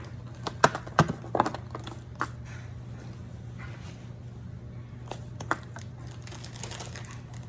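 Small chocolate eggs being sprinkled into an Easter basket of plastic grass and candy: a scatter of light clicks, taps and rustles, mostly in the first two seconds, with a couple more about five seconds in. A steady low hum runs underneath.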